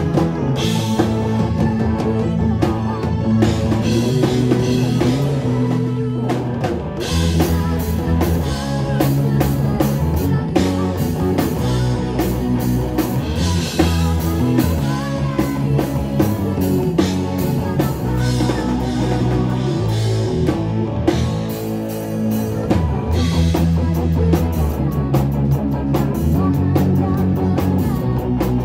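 Pearl drum kit played with sticks in a live band, with repeated cymbal crashes over other instruments holding steady low notes.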